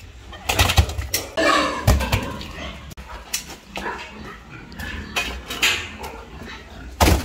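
Heavy banana tree trunks thudding down onto a wet concrete floor. There are a few heavy thuds in the first two seconds and another near the end, with lighter knocks and scrapes in between.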